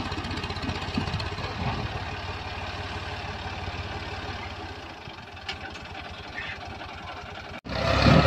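Ford 4000 tractor engine running under load as it strains to pull a log-laden trailer out of the mud, a steady sound with a fine rapid pulse and a few thumps in the first two seconds. Near the end the sound drops out for an instant and comes back louder.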